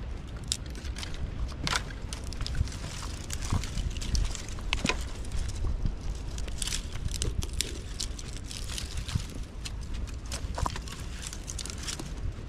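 Dry twigs and brushwood snapping and crackling in irregular sharp clicks, over a steady low rumble.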